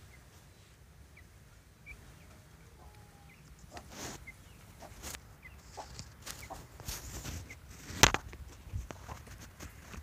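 Birds moving and calling at a wire cage: a few faint short chirps in the first seconds, then scattered short knocks and calls from about four seconds in, the sharpest about eight seconds in.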